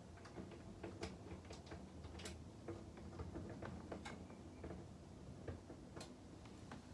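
Scattered faint clicks and light taps at irregular intervals over a low background hum, with sharper clicks about one, two and four seconds in and again near six seconds.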